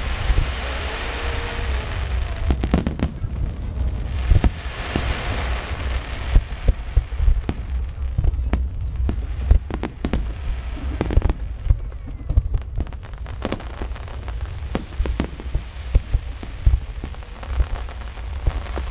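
Aerial fireworks bursting: many sharp bangs throughout, with stretches of crackling hiss in the first couple of seconds and again about five seconds in.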